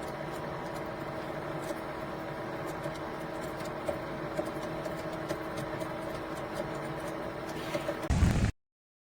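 Little Giant VCMA-20ULS condensate pump's small 1/30 HP motor running with a steady hum while pumping water, which the owner feels is slower than it should be. Near the end comes a short, louder low thump, then the sound cuts off suddenly.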